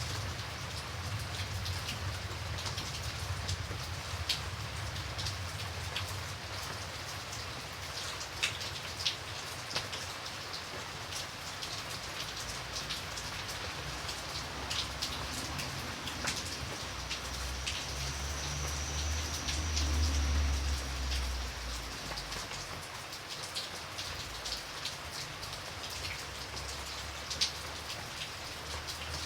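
Steady rain falling, with many sharp individual drop hits on a surface. A low rumble swells briefly about two-thirds of the way through.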